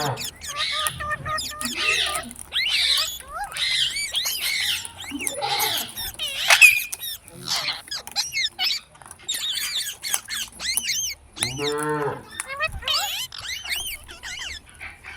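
Parrots chattering with short, rapid squawks and chirps throughout, and one longer, lower call about twelve seconds in.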